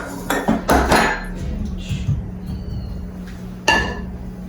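Kitchenware being handled at a stove: a quick run of sharp clanks and knocks in the first second and one more clank near the end, over a steady low hum.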